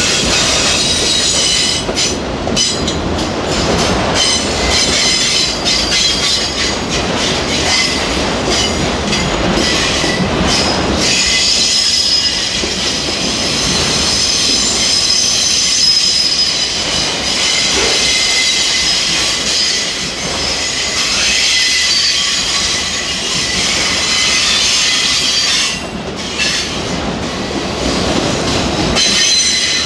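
Freight train of enclosed autorack cars rolling past close by: a steady rumble of steel wheels on rail with sharp clicks, and high-pitched wheel squeal that grows stronger about a third of the way in and eases near the end.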